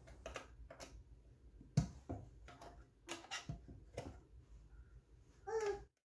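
Scattered light clicks and taps of a metal Bondo body filler can being handled, with a small tool working at its lid to pry it open. The loudest knock is about two seconds in, and a short pitched squeak-like sound comes near the end.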